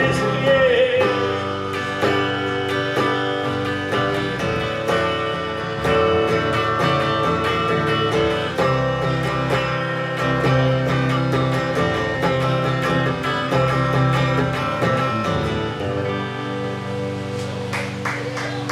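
Live acoustic guitar music: an instrumental passage, strummed and picked, with no singing.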